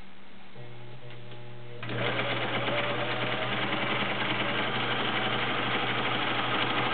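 Viking 6370 sewing machine sewing a straight stitch through fabric. It runs quietly at first, then about two seconds in it picks up speed and gets louder, sewing steadily fast.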